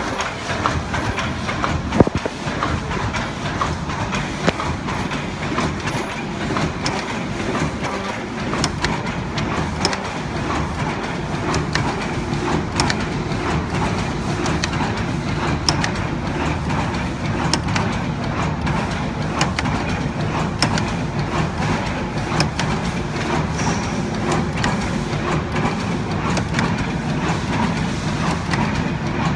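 ZBJ-NZZ middle-speed paper cup forming machine running: a steady mechanical clatter of many quick clicks and knocks over a low hum, with one sharper click about two seconds in.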